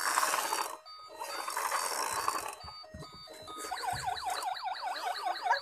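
Battery-operated toy police car playing electronic sounds: a beeping jingle over a rough buzzing noise for the first couple of seconds, then a fast wailing siren, about two or three wails a second, from nearly four seconds in.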